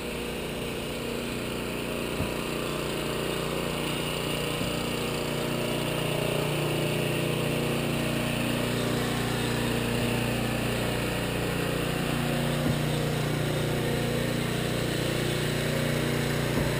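Small boat's outboard motor running steadily at a constant pitch, the drone growing slightly louder over the first few seconds, as the boat moves through floodwater.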